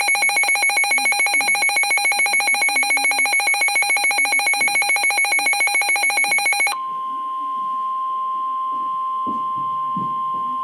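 Emergency Alert System alarm tones for a test tornado warning, heard through a radio. A rapid pulsing electronic alarm, about seven or eight beeps a second, sounds for nearly seven seconds and then gives way to a steady single-pitched attention tone.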